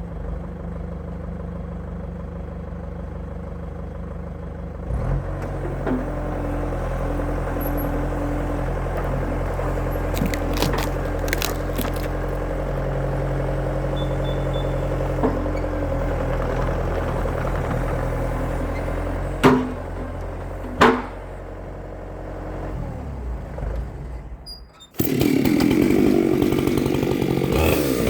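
An engine idling steadily, picking up a little about five seconds in, with a couple of sharp knocks about two thirds of the way through. Near the end a chainsaw starts cutting, its revs rising and falling.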